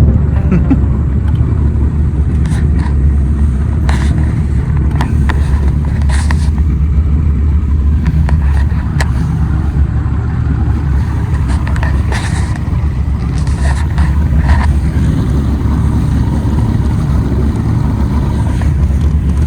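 Fishing boat's outboard motor running steadily underway, a loud low drone, with scattered short knocks and splashes over it.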